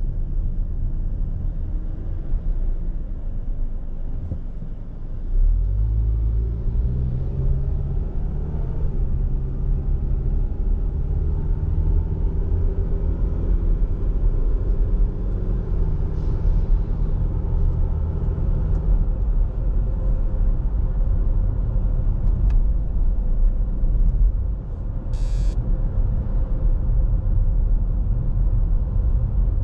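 Car engine and tyre rumble heard from inside the car. About five seconds in the engine note rises as the car pulls away and speeds up, then settles into a steady cruising drone with road rumble. A short high hiss comes a few seconds before the end.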